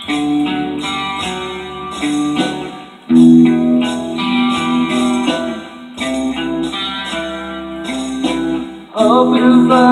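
Electric guitar playing a hard rock instrumental passage, picked notes and chords ringing out in phrases of about three seconds.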